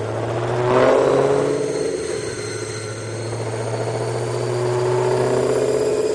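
Supercharged Ford Mustang GT500 V8 engine running hard, with a quick jump in revs about a second in. It then eases off slightly and climbs slowly and steadily in pitch toward the end.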